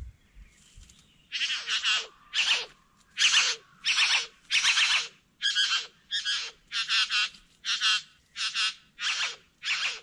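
Male satin bowerbird's courtship calls: a run of about a dozen harsh, buzzing notes, about one and a half a second, each ending in a downward sweep, starting about a second in.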